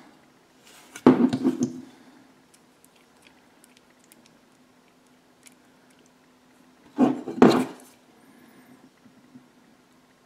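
Small screws being driven into a die-cast metal model part with a precision screwdriver: faint ticks and scrapes of the driver. Two louder knocks and clatters of the metal part being handled come about a second in and about seven seconds in.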